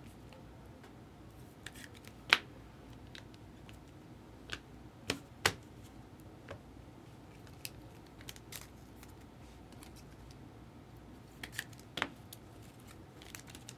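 Trading cards and foil packs being handled on a table: a scattering of short sharp clicks and taps, the loudest about two seconds in, a few more around five seconds and again near the end.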